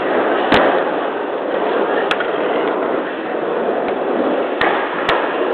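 Skateboard wheels rumbling steadily over wooden skatepark ramps, with a few sharp clacks of boards striking the wood, once about half a second in, once around two seconds and twice near the end.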